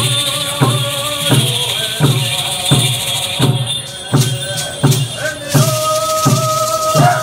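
Hand drum struck in a steady beat, about three strokes every two seconds, with a voice chanting long held notes over it and gourd rattles shaking along.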